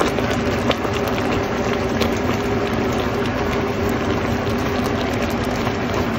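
Pot of taro in coconut cream bubbling steadily at a simmer, with a spatula stirring through the leaves and a faint steady hum underneath.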